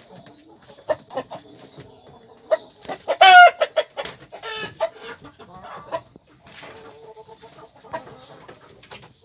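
Herati chickens clucking in short calls, with one much louder pitched call about three seconds in.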